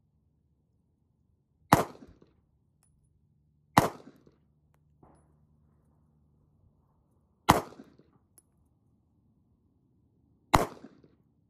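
Sig Sauer P938 Legion 9mm micro-compact pistol firing four single shots of 115-grain FMJ, a few seconds apart, each shot followed by a short echo.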